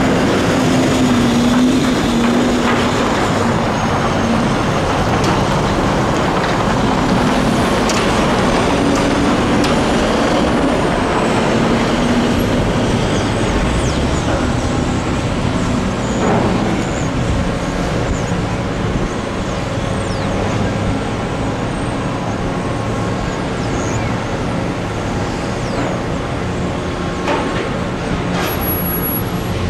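Diesel truck engine running as a sugar cane trailer is hauled past, its note wavering for about the first ten seconds. After that a steady machinery hum from the sugar mill's unloading equipment carries on.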